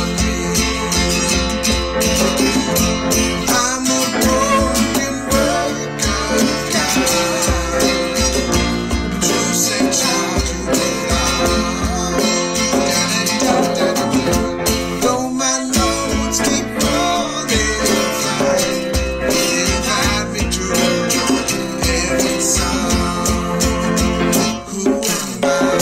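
Worship band playing a song: acoustic guitar strumming, piano, and a hand drum keeping a steady beat, with a woman and a man singing.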